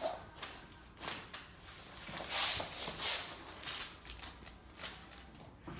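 Rustling of clothing and a padded treatment table, with scattered soft clicks and knocks, as a patient is moved into position.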